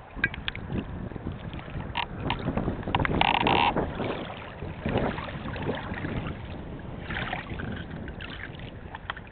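Wind buffeting the microphone over choppy lake water lapping against rocks and reeds at the shore, with scattered small clicks and a short, louder burst a little after three seconds in.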